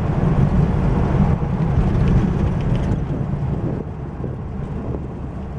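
Car cabin noise while driving at speed: a steady low rumble of engine and tyres on the road, with wind hiss, easing slightly a little past the middle.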